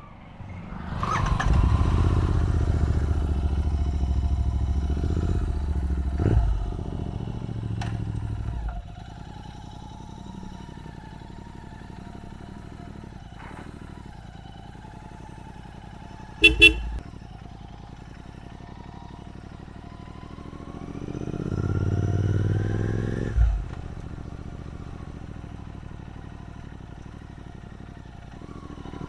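Royal Enfield Continental GT 650's 648 cc parallel-twin engine through an AEW aftermarket exhaust, pulling away under throttle for about eight seconds, then running quieter at low speed. About halfway through comes a short double toot of the horn. Near the end a second burst of acceleration cuts off sharply as the throttle is closed.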